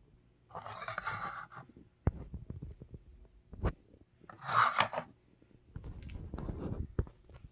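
Rubbing and scraping handling noise: three bursts of about a second each, with small clicks and taps between them.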